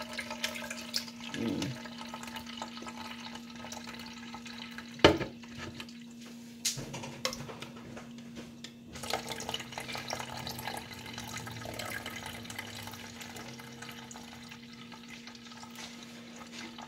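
Blended carrot pulp being strained through a fine mesh sieve, the juice running and dripping into a plastic measuring jug. A sharp knock comes about five seconds in, and a low steady hum runs underneath.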